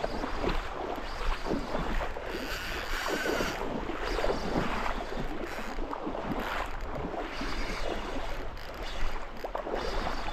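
Water sloshing and splashing in rocky shallows, with wind buffeting the microphone.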